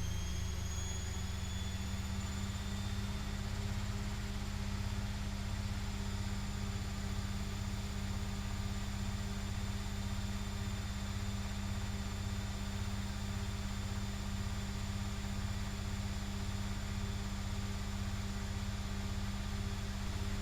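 Privileg Classic 30612 washing machine running with its drum turning at speed: a steady machine hum and a high motor whine that climbs a little in pitch over the first few seconds, then holds level.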